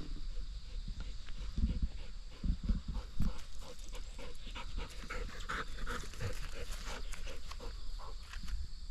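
A dog panting in quick, short breaths, with a few low thumps in the first few seconds.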